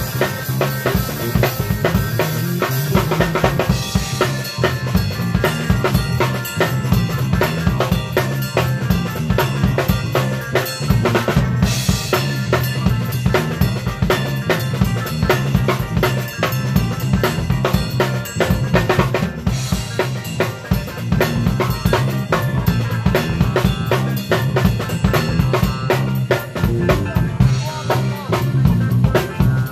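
A live band plays an instrumental groove, with a drum kit heard up close: kick, snare and cymbals struck with sticks over a steady bass guitar line. A cymbal crash stands out about three seconds in, and again around the middle of the groove.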